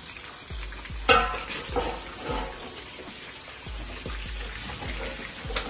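Background music with a steady bass beat over meat sizzling as it fries in a large pan over a fire.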